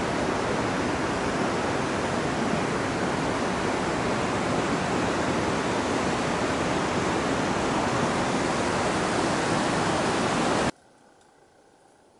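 Steady rushing of river water over rocks, an even hiss that cuts off suddenly near the end.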